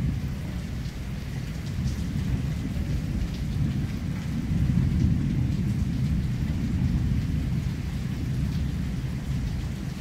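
Thunder rumbling low and continuously, swelling in the middle, over the steady hiss of heavy rain.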